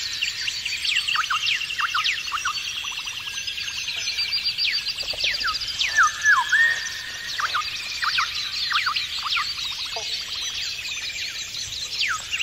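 Chorus of several songbirds singing at once: overlapping chirps, quick whistled down-slurs and rapid trills.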